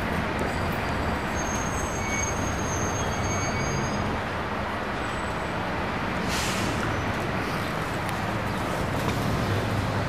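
Steady city street traffic noise from passing vehicles, with a short hiss about six seconds in.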